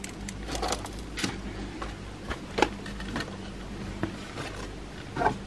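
Light scattered knocks and rustles as bananas are handled and pulled from a wire-mesh fruit bowl, over a low steady hum.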